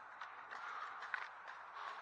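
Footsteps and rustling in dry fallen leaves, with a few short crunches, the sharpest about a second in.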